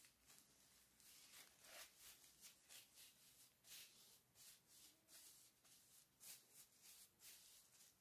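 A paper tissue rubbing over the back of a hand coated in an oily, salty paste: a faint rustle in short, irregular strokes, about two a second.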